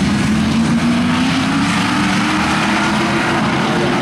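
Pack of Super Street stock cars racing on a short oval, several engines running loud and steady together, their pitch climbing slightly in the first second or so.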